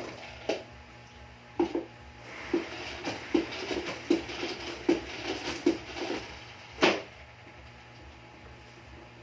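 Spin mop handle being twisted and worked by hand: a run of short plastic clicks and knocks, about one or two a second, ending in one sharper click about seven seconds in.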